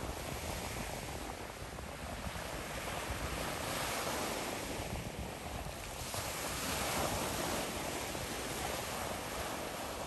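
Sea surf washing and breaking at the shoreline, a continuous rush of water that swells louder a few seconds in and again later, with wind buffeting the microphone as a low rumble underneath.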